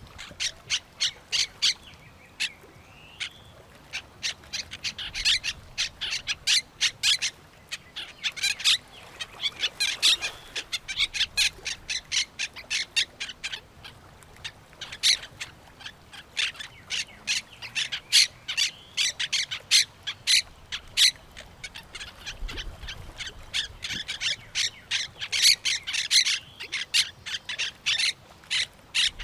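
A flock of parrots and other birds squawking and chirping in a dense chatter of short, sharp calls that overlap without pause.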